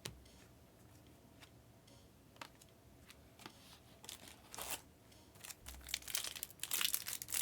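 A foil trading-card pack wrapper being torn open and crinkled, starting about halfway in and getting busier and louder near the end, after a few light clicks from handling cards.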